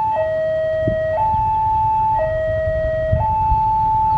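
Railway level-crossing warning alarm sounding a two-tone hi-lo signal, switching between a higher and a lower tone about once a second, the signal that the crossing is closing for an approaching train. A low rumble runs underneath.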